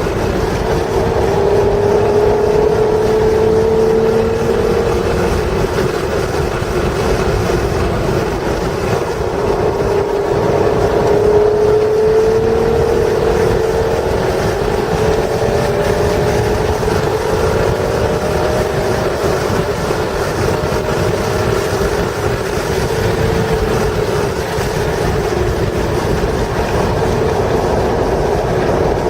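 A 1996 Acura NSX's stock 3.0-litre V6 pulling hard at speed, its pitch climbing through the revs, dropping back and climbing again several times as the car accelerates and lifts around the track. A steady rumble of wind and road noise runs underneath.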